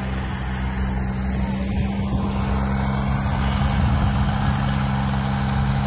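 John Deere 5075E tractor's diesel engine running at a steady, even speed.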